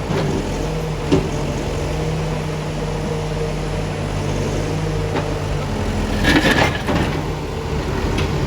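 Backhoe loader's diesel engine running steadily, with a knock of debris about a second in and a short burst of clattering impacts around six and a half seconds in.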